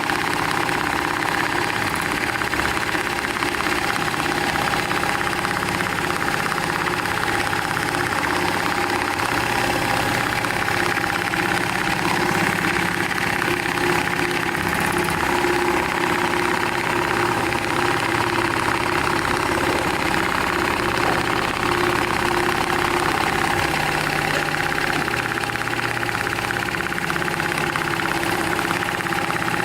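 Programmable profile-stitching sewing machine running steadily, its motor hum and stitching mechanism making a continuous mechanical drone with a low tone that shifts in pitch every few seconds.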